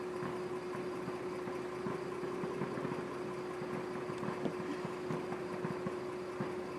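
Car engine idling, heard from inside the car: a steady hum with one constant tone and faint scattered crackles.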